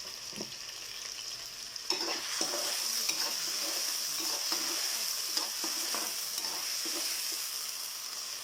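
Potatoes stir-frying in hot oil with soy sauce make a steady sizzle that gets louder about two seconds in. A spatula scrapes and knocks against the pan as it stirs.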